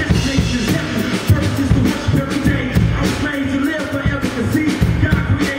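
Live gospel hip-hop music with a steady drum beat, and a voice singing over it through the stage sound system.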